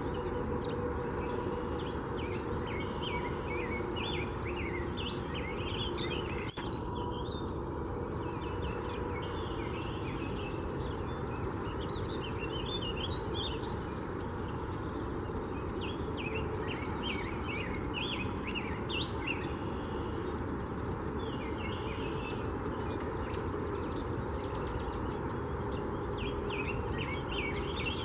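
Several songbirds chirping and singing in short, rapid notes throughout, over a steady low background rumble.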